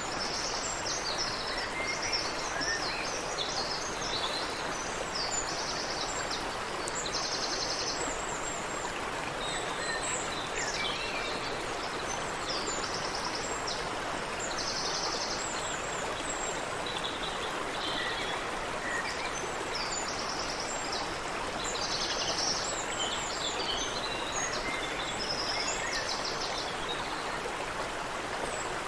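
Water running steadily in a stream, with small birds calling and chirping over it throughout, including several short, rapid trills.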